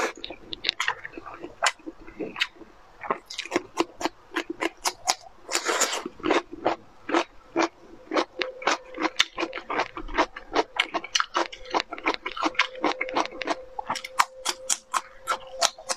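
Close-miked eating sounds: chewing, then many crisp crunches a second as a raw cucumber stick is bitten and chewed.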